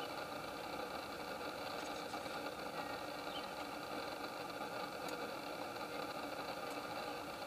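Steady mechanical drone of a running engine, unchanging throughout, with a faint short high chirp about three seconds in.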